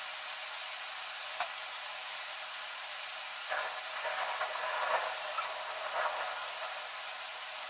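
Aerosol spray-paint can hissing, louder and uneven in spells for a few seconds from about halfway, as paint is sprayed onto a refrigerator.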